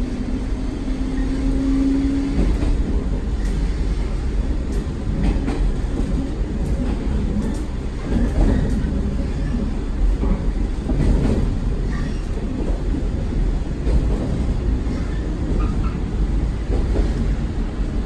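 Train running on the track: a steady low rumble with repeated knocks of wheels over rail joints, and a humming motor tone that rises slightly and fades out about two seconds in.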